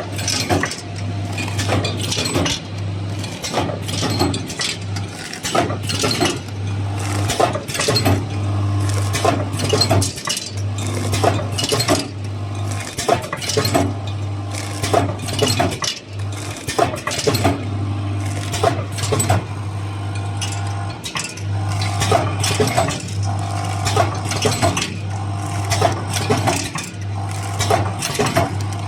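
Kitchen utensils and glassware clinking and tapping repeatedly, several sharp clinks a second, over a steady low hum that cuts out now and then.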